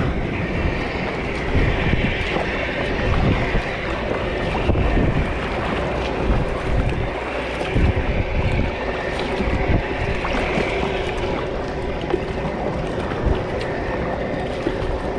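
Wind buffeting the microphone over surf and water washing around a kayak heading out through breaking waves.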